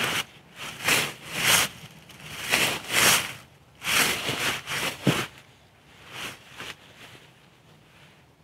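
Footsteps through forest leaf litter and brush at an irregular walking pace, with a sharp snap about five seconds in; the steps grow fainter and stop near the end.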